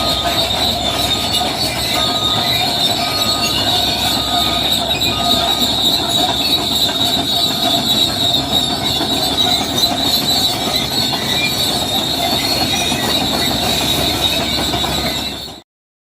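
Steel crawler tracks of a bulldozer squealing steadily as the machine moves, with a faint repeating tick about every half second in the first few seconds. The sound cuts off abruptly near the end.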